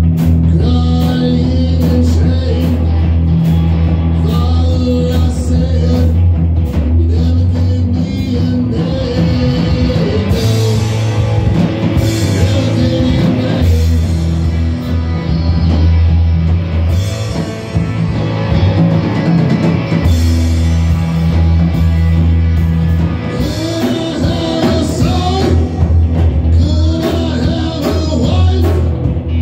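Live rock power trio jamming: electric guitar, electric bass and drum kit playing together, loud and steady.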